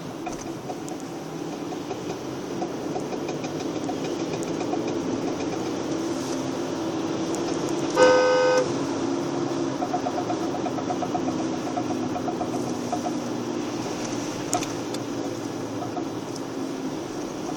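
Car engine running with a fast, rhythmic knock. A car horn honks once, briefly, about halfway through.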